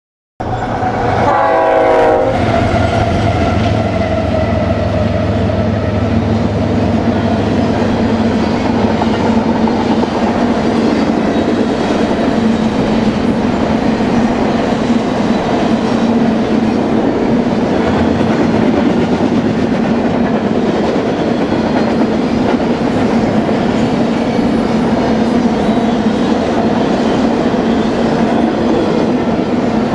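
BNSF intermodal freight train passing: the lead locomotive's horn sounds briefly about a second in, its chord dropping in pitch as it goes by, then the diesel locomotives and a long, steady rumble of wheels on rail with clickety-clack as the cars roll past.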